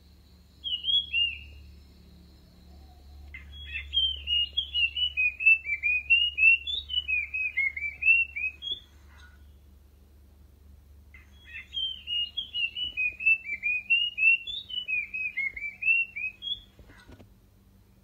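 Puff-throated babbler singing: a brief call about a second in, then two long runs of quick whistled notes, each lasting about five seconds.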